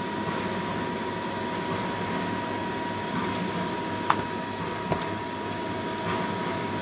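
Kitchen range hood fan running with a steady whir and a thin, even whine. Two light knocks come about four and five seconds in.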